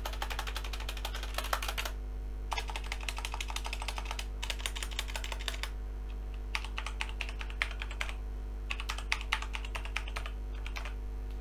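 Typing on a Logitech G512 Carbon mechanical keyboard with GX Brown tactile switches, which press with a bump but no click. Quick runs of keystrokes come in about five bursts with short pauses between, over a steady low hum.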